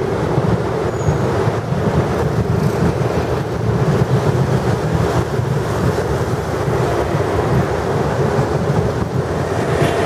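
Street traffic: motorcycles and cars passing on a busy road, a loud steady low rumble.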